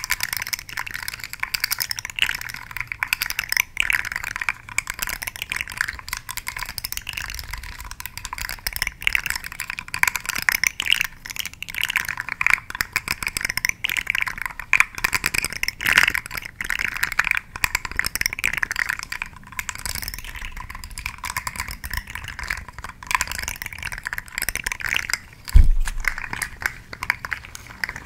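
Dense, rapid crackling and scratching of a shark-themed ASMR trigger object worked close to the microphone, with one low thump near the end.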